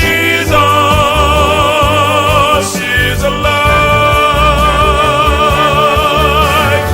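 Gospel song: a voice holds long notes with a wide vibrato over a steady instrumental backing, with a brief break about three seconds in.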